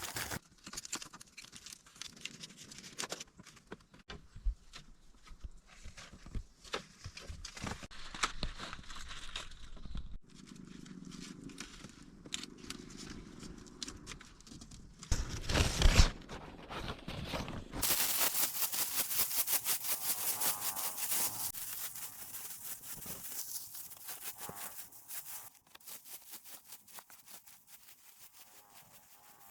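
Hand work with bamboo and grass: scattered snaps, clicks and tearing, a loud knock about sixteen seconds in, then several seconds of fast repeated scraping strokes.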